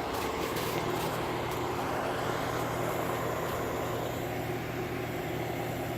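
Vehicle engine running steadily at idle, a low steady hum over outdoor noise.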